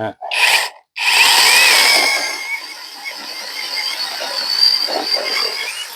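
Battery-powered chainsaw triggered in a short burst, then running and cutting into a log for about five seconds, its high whine wavering as the chain bites and loudest at the start of the cut.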